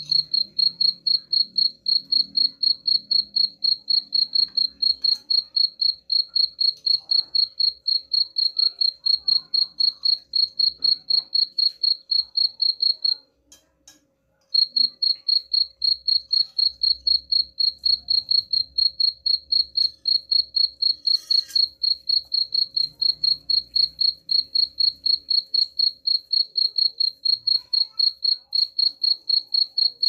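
A cricket chirping, a high-pitched chirp repeated in a fast, even rhythm of about four a second. The chirping stops for a little over a second about halfway through, then carries on unchanged.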